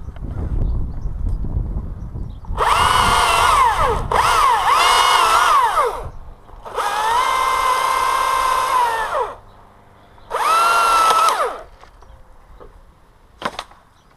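Chainsaw run in four bursts of a few seconds each, its pitch dipping and sliding back down as the throttle is released at the end of each burst. A low rumble comes first, and a single sharp click near the end.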